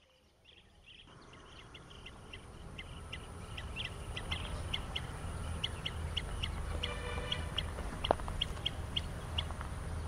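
Blue-tailed bee-eaters calling: short, high chirps repeated a few times a second, with a quick trill about seven seconds in, over a low steady rumble. The sound fades in over the first few seconds.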